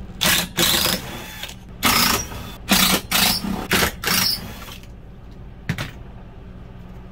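Cordless power driver backing out screws from an RV refrigerator's cooling-unit mounting, in about seven short whirring runs over the first four and a half seconds. A single knock near six seconds as the driver is set down on the unit.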